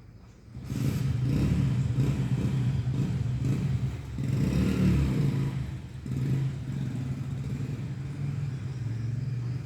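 A motor vehicle engine running steadily, its hum swelling briefly about four to five seconds in.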